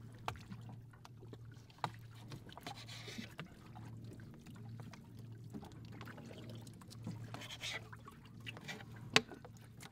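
Knife work on raw tuna on a boat's fibreglass hatch lid: scattered light clicks and knocks of the blade against the lid, with one sharp knock near the end. A steady low hum from the boat runs underneath.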